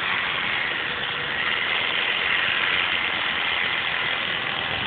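Steady noise of a running motor, with a faint high tone in it.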